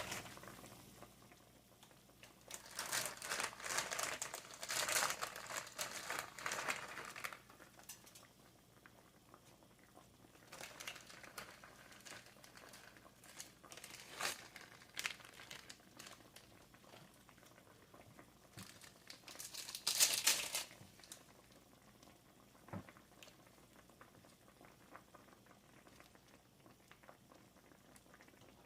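Several quiet bursts of crinkling and rustling, the longest a few seconds in and another about two-thirds of the way through, with scattered soft clicks between them.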